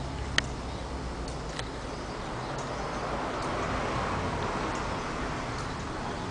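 Cutaway single-cylinder engine teaching model running: a steady low mechanical hum with a few light, irregular clicks, the sharpest about half a second in.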